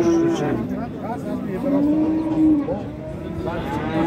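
Cattle mooing. The end of one moo comes at the start, a long, drawn-out moo about two seconds in, and another beginning near the end, over a background of voices.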